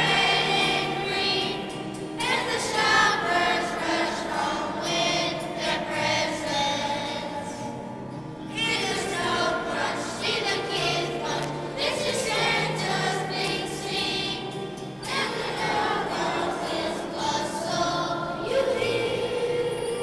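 A choir of fifth-grade children singing a holiday song together.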